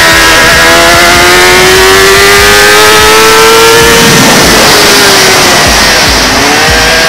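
Kawasaki ZX-10R inline-four race engine pulling hard at high revs, its pitch climbing steadily, then dipping about four seconds in and rising again near the end. Heavy wind rush on the bike-mounted microphone.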